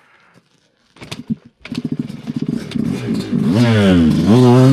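Dirt bike engine starting up about a second and a half in. It runs with a fast, even pulse, then is revved up and down from about three and a half seconds.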